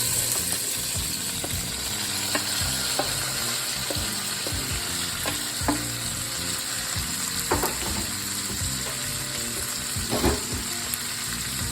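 Peppers and onion sizzling in bacon grease with smoked sausage in a pot while being stirred, with a few sharp knocks of the utensil against the pot.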